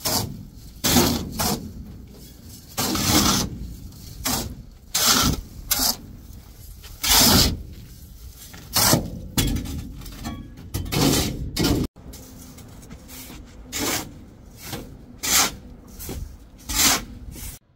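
Shovels scraping and scooping coarse sand off the steel floor of a trailer bed, an irregular run of rasping strokes about one a second from two people working. There is a sudden break about two-thirds of the way through.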